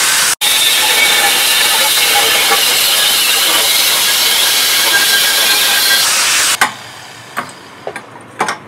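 Angle grinder with a thin cut-off disc cutting through steel plate: a loud, steady hissing whine that breaks off for an instant shortly after the start. It stops about six and a half seconds in, and a few sharp snips of metal shears cutting the thin steel follow.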